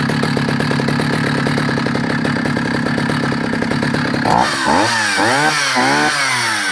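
Husqvarna L65 vintage two-stroke chainsaw idling steadily, then blipped up and down several times with quick revs from a little past halfway.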